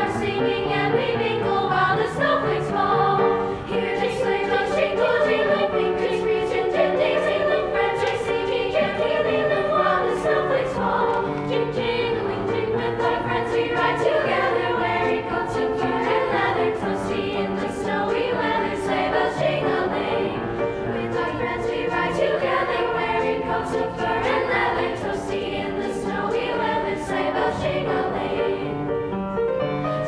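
Treble girls' choir singing a Christmas song together, with piano accompaniment.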